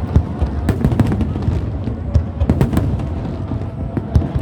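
Fireworks going off in a dense barrage: rapid sharp bangs and crackles over a constant deep rumble of booms.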